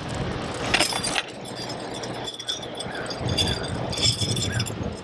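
Metal pole-mount straps and a steel mounting bracket clinking and rattling as they are handled and fitted together, with a burst of clinks about a second in and lighter ticks and rattles after.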